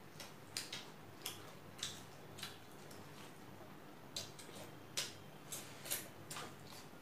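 Faint eating sounds: about a dozen short, irregular wet clicks and smacks from chewing and from mixing rice with the fingers on the plates, over a low steady hum.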